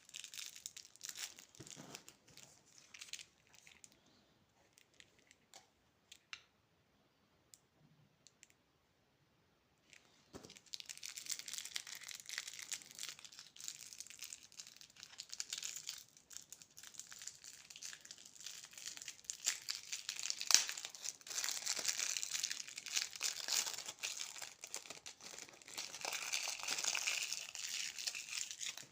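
Plastic candy wrappers crinkling and tearing as candy is unwrapped. The crinkling dies down to a few scattered clicks for several seconds, then comes back denser and louder about ten seconds in.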